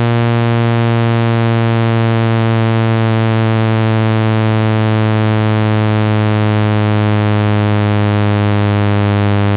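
Speaker-cleaner tone: a loud, steady, low buzzing tone with many overtones, held at one pitch. It is played through a phone speaker to shake dust and water out of it.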